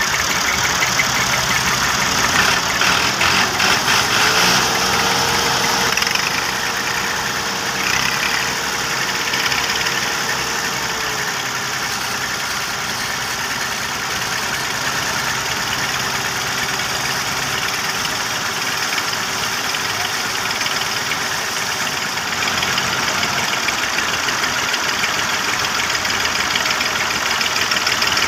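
Diesel farm tractor engine running under load, straining to pull a heavily overloaded sugarcane trolley bogged in soft sand. It gets louder about two to six seconds in and again from about twenty-two seconds on.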